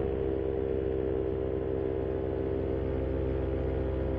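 Moster 185 single-cylinder two-stroke paramotor engine and propeller running steadily at cruise power, a constant even drone.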